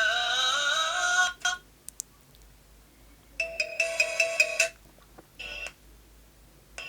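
Several short mobile-phone ringtones played one after another, each cut off after a moment. First a synth melody stepping upward that stops about a second and a half in. After a pause comes a brighter tune with a quick tapping rhythm lasting about a second, then a brief snatch of another, and a new one starts near the end.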